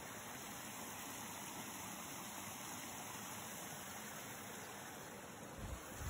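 Small woodland stream running steadily over rocks and little cascades. Near the end, low rumbling bumps on the microphone cut in as the phone is moved.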